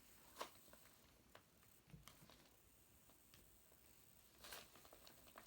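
Near silence, with a few faint, short clicks or taps.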